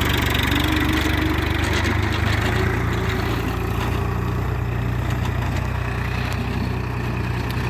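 Swaraj tractor's diesel engine running steadily while it pulls a laser land leveller through loose soil, growing slightly fainter as it moves off.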